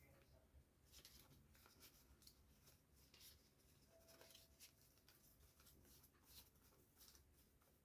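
Near silence, with faint, scattered rustles of paper being handled.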